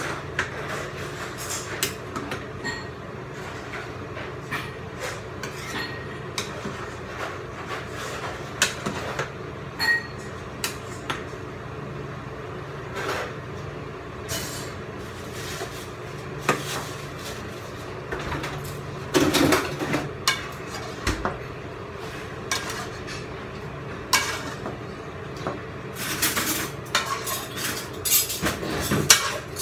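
Metal cooking utensil clinking and scraping against a metal pot as noodles are stirred and tossed, in irregular clinks over a steady low hum. A louder run of clattering comes near the end.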